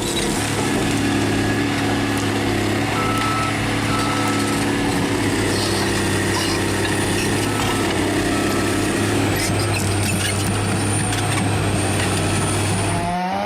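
Heavy machine's engine running steadily under load, with a short, high beep repeating every second or so.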